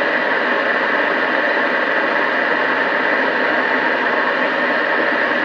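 CB base station receiver on FM, the Murphy 1500, putting out a steady hiss of open-channel static with no station coming through.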